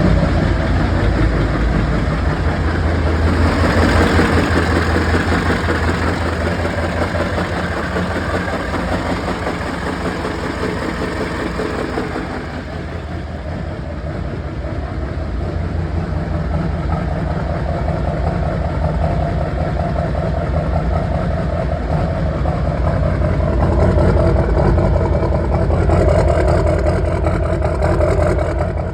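6.6L Duramax V8 turbo-diesel running at idle with a knock and one cylinder misfiring, the faults the owner is asking about. The engine grows louder and brighter a few seconds in, eases back about twelve seconds in, and swells again near the end.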